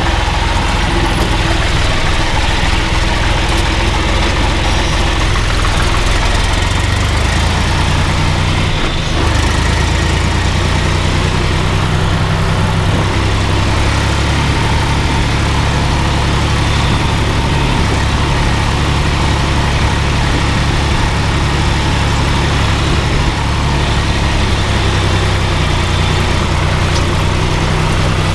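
Older John Deere tractor's diesel engine running steadily as the tractor drives, heard close up from inside the cab, with a brief dip in the sound about nine seconds in.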